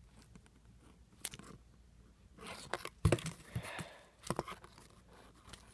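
Rustling and scraping of squishy toys being put down and picked up in a cardboard mailing box, with a few clicks and a loud knock about three seconds in.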